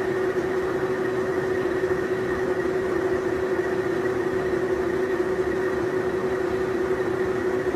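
Manual metal lathe running steadily under power feed, turning a taper with a taper attachment: an even mechanical hum with one held tone, unchanging throughout.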